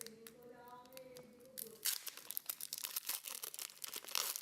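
Foil booster-pack wrapper crinkling and tearing, a dense run of crackles starting about two seconds in. Before that, a faint held pitched tone sounds in the background.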